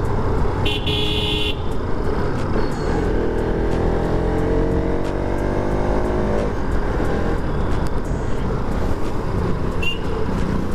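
Riding in city traffic: a steady low rumble of engine and wind, a short high vehicle horn toot about a second in, and an engine accelerating with rising pitch from about three to six and a half seconds in.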